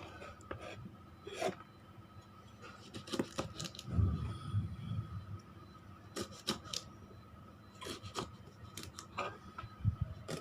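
Irregular clicks, snaps and short scrapes of food being prepared by hand in a kitchen, such as green beans being cut or snapped, with a low thud about four seconds in and another near the end.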